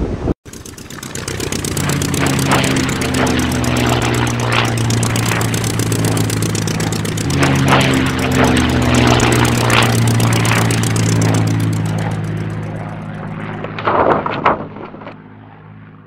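Cartoon propeller-plane sound effect: a steady engine drone that strengthens about seven seconds in and fades over the last few seconds, with a few brief swishes passing over it.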